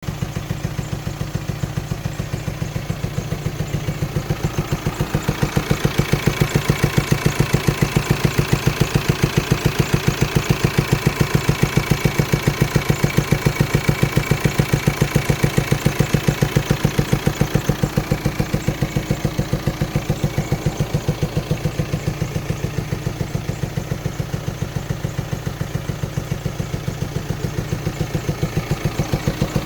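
An engine idling with an even, rapid pulsing beat, making the bad sound that the owner means to have fixed.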